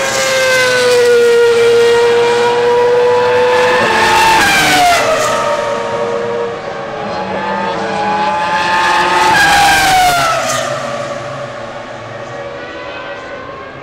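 Ferrari Formula 1 car running hard on the circuit, its engine note loud and high. The note falls sharply about four seconds in, climbs again, and falls once more about ten seconds in, then fades.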